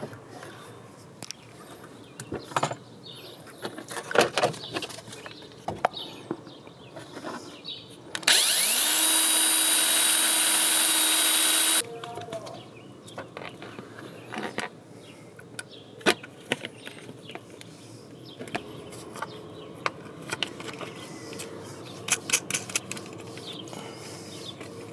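Power drill spinning up and running steadily for about three and a half seconds, boring through a small plastic mounting part, starting about eight seconds in. Scattered small clicks and knocks of parts being handled come before and after it.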